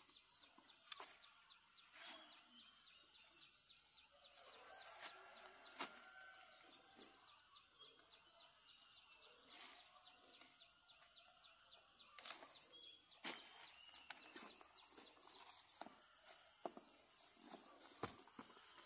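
Quiet rural outdoor ambience: a steady high-pitched drone, faint bird chirps, and a scattering of sharp single clicks and taps.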